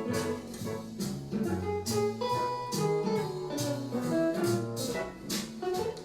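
Instrumental music played back through a Bose Smart Soundbar 900: a bass line stepping from note to note under melodic notes, with regular cymbal-like hits.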